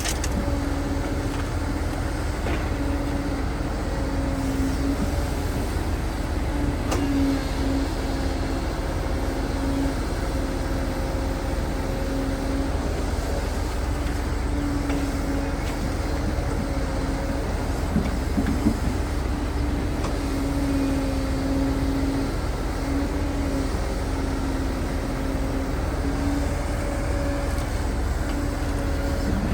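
Excavator's diesel engine running steadily with a droning hum while it digs and loads soil, with a few short knocks.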